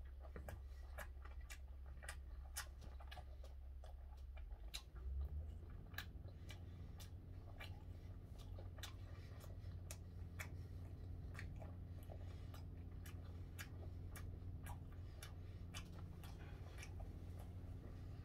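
A man chewing a mouthful of food with his mouth closed, small wet clicks of the mouth about twice a second over a steady low hum, with a soft low thump about five seconds in.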